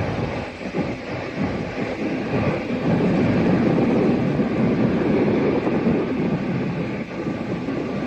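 Jet airliner engines heard at an airport, a broad rumbling roar that swells about three seconds in and eases toward the end.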